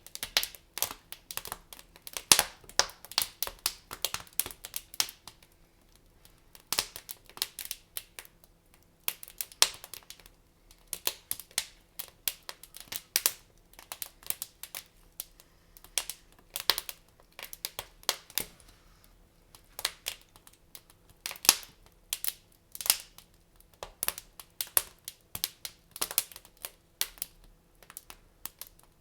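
Wood fire crackling in a fireplace: irregular sharp pops and snaps, some in quick clusters, a few louder single cracks.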